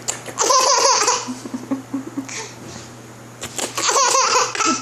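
A baby laughing in two breathy bursts, one just after the start and one near the end, with small soft voice sounds in between.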